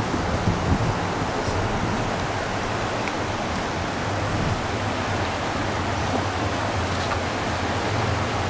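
Fast mountain river running over rapids: a steady, unbroken rush of whitewater.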